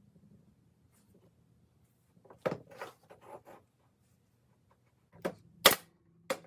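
Sharp knocks and clatter of wood being handled in a workshop: a short run of clattering hits about two and a half seconds in, then three hard single knocks near the end, the middle one loudest.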